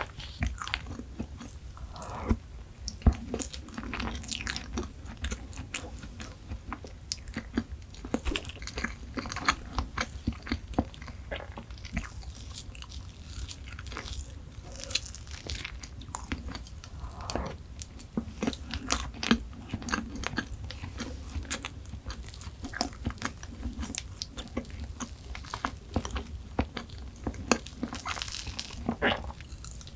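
Close-miked eating sounds: a person biting and chewing chocolate desserts, with many small crunches and wet mouth clicks at an uneven pace.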